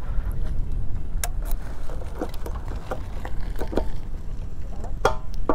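Wind buffeting the microphone with a steady low rumble. Over it come several sharp clicks and knocks, the last two near the end with a brief metallic ring, as the motorcycle's key-locked fuel-tank cap is unlocked and opened.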